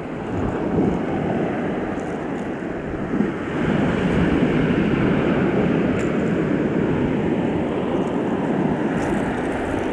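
Surf washing among rocks: a steady rush of water that swells slightly about half a second in and again a little past three seconds.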